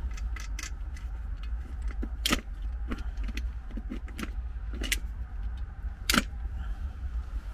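Small wood fire crackling in the base of a Kelly Kettle, irregular sharp snaps and clicks, two louder ones about two and six seconds in, over a steady low rumble.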